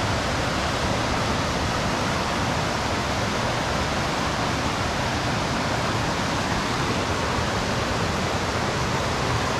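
Two mountain creeks rushing together at their confluence, a loud steady roar of churning whitewater.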